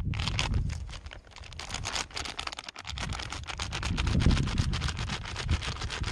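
Plastic flour packet crinkling and crackling as it is handled and tipped out, a dense run of fine crackles starting suddenly, over a low uneven rumble.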